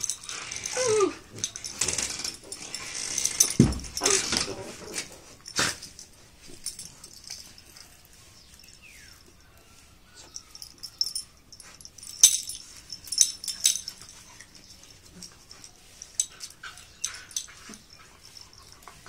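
Two dogs play-fighting, mouthing and biting at each other: scuffling and breathy dog noises in bursts, with a short falling cry about a second in. After a quieter spell, scattered clicks and scuffles come around the middle and again near the end.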